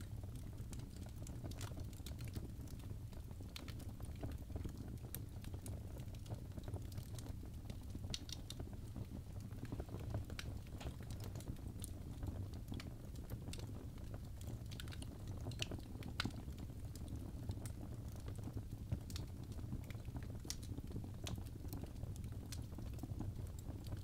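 Fireplace fire burning with a steady low rumble and frequent small, sharp crackles at irregular intervals.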